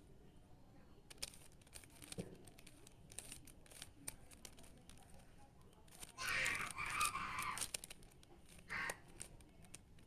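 Plastic Rubik's cube being turned by hand: scattered clicks of single turns, then a loud run of rapid clacking turns about six seconds in, lasting a second and a half, and a short burst near the end.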